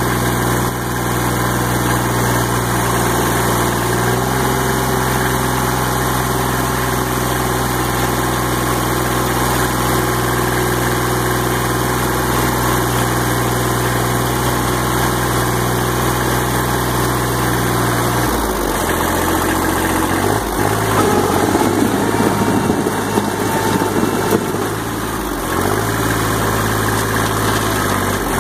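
Kubota L225 tractor's three-cylinder diesel engine running steadily at idle. About two-thirds of the way in, the engine note drops lower and turns rougher and a little louder for several seconds, as if under load, then settles back to the steady idle.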